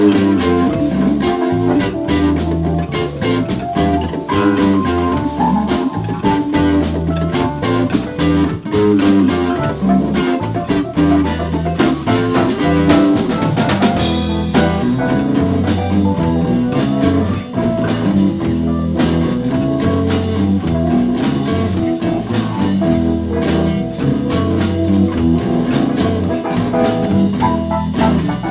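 Live blues band playing an instrumental passage: electric guitar over bass and a drum kit keeping a steady beat.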